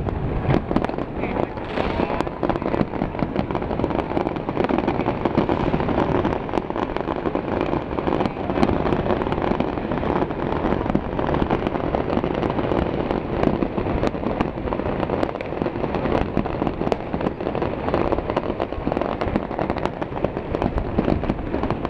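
A dense fireworks barrage: rapid, overlapping bangs and crackles without a pause.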